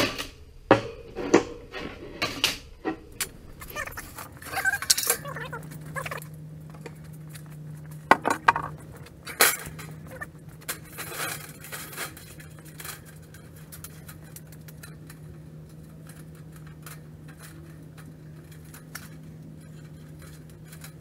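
Pieces of thin 24-gauge steel sheet clinking and clattering against a steel-slat cutting table as they are handled and a fresh sheet is laid down: a dozen or so sharp metallic knocks, most of them in the first ten seconds. A steady low hum comes on about five seconds in.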